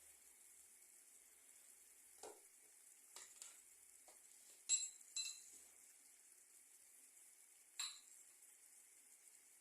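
A metal spoon knocking and clinking against a cooking pot about six times, the two loudest clinks ringing, while sugar syrup simmers with a faint steady hiss.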